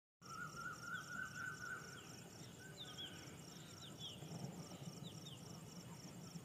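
An insect chirping in a steady high pulse, about three to four a second, with birds calling: a warbling trill in the first second and a half, then scattered short falling chirps. A low, even background rumble runs underneath.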